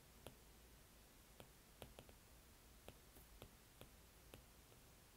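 Near silence with faint, irregular clicks of a stylus tip tapping on a tablet's glass screen during handwriting, a few a second.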